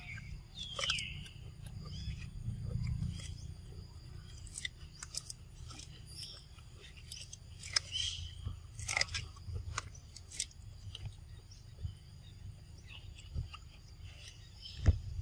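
Macaques eating corn on the cob: scattered crunching clicks from biting and chewing the kernels, with one louder knock near the end.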